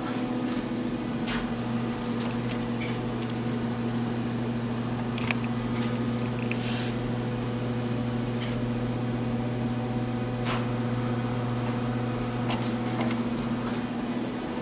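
Steady machine hum, like a running fan or ventilation unit, with a few faint clicks and a brief rustle about six and a half seconds in.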